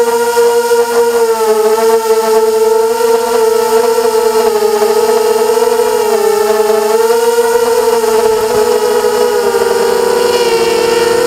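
FPV racing quadcopter's electric motors and propellers whining as it flies, the pitch wavering gently up and down with the throttle. Near the end the pitch dips and the tone splits into several.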